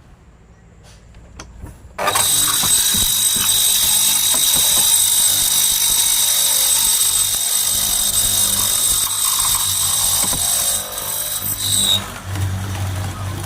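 Electric power tool switched on about two seconds in, running steadily with a high whine for about ten seconds, then shut off and winding down near the end.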